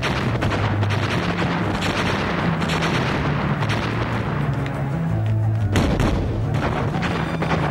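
Cartoon battle sound effects: repeated gunfire and explosion blasts, the heaviest a little under six seconds in, over dramatic background music.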